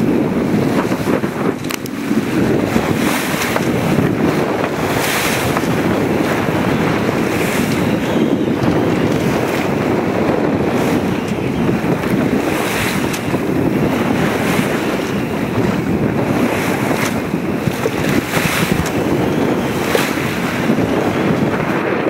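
Strong wind on the microphone and waves rushing past the hull of a sailboat under sail in rough water, with short splashes every second or two.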